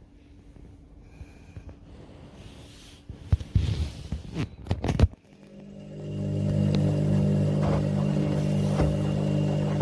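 A burst of sharp knocks and clicks from handling the Candy Smart Pro washer-dryer, then the machine starting up: a steady mechanical hum that rises in over about a second and holds.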